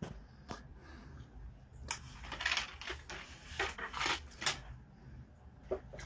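Handling noise: a couple of sharp clicks, then a run of short crackling rustles about two to four and a half seconds in.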